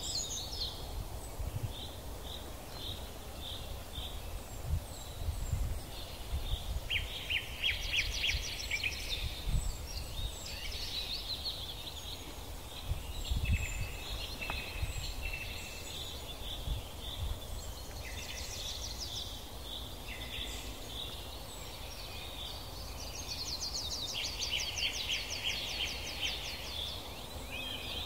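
Several songbirds calling and singing in the trees: short repeated notes and rapid trills, overlapping, over a low uneven rumble on the microphone.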